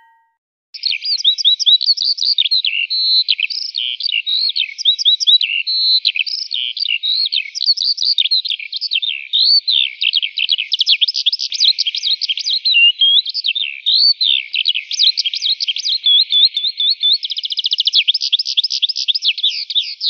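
Songbird chirping without a break: fast, high whistled notes sweeping up and down, several a second, starting about a second in, with a rapid trill near the end.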